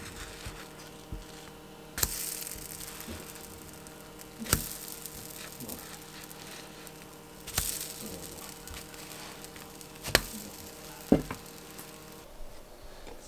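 Pancakes sizzling in a stainless steel frying pan as a wooden spatula flips them one by one. A sharp tap on the pan comes about every two to three seconds, and a burst of louder sizzling follows each flip, over a steady hum.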